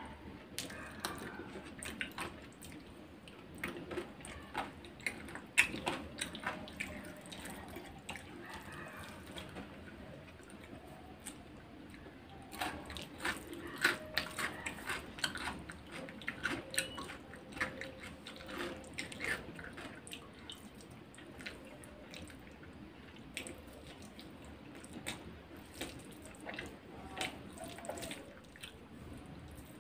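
Close-up eating sounds: wet chewing and lip smacks as chicken biryani is eaten by hand, with squelchy mixing of rice and gravy. The sound is a run of irregular short wet clicks.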